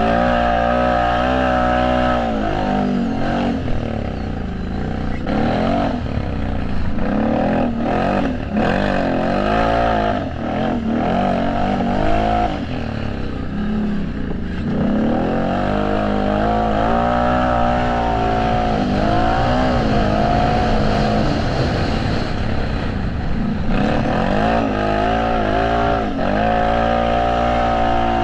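Several off-road racing engines, ATVs and motocross bikes, revving hard on the track. Their pitch climbs and drops again and again with throttle and gear changes, overlapping one another.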